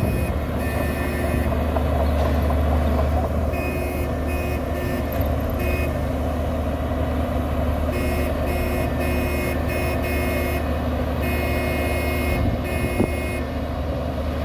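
Heavy diesel earthmoving machine running steadily with a deep engine drone. Over it, a reversing alarm beeps in runs of short beeps, with pauses of a couple of seconds between the runs.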